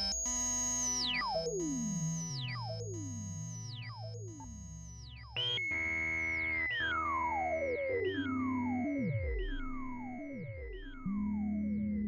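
Micromoog analog synthesizer, circa 1977, played through a Korg delay: high held tones that swoop steeply down in pitch, repeating at an even pace of under a second and fading away. A new, louder phrase starts a little after halfway, and a low note comes in near the end.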